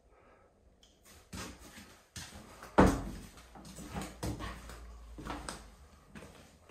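Footsteps and knocks from someone walking through a small room and through a doorway, at an uneven pace, with one heavy thump about three seconds in.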